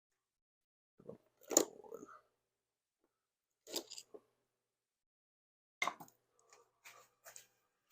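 Hand tools clicking and scraping against the motorcycle's rusty metal parts in a few short bursts, with silence between them.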